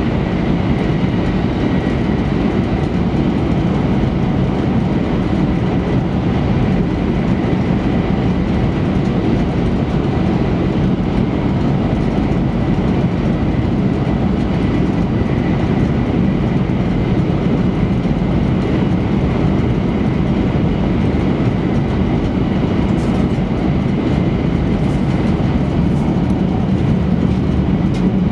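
Interior cabin noise of an E3-series Shinkansen car running at speed: a steady, unbroken low rumble of wheels and track.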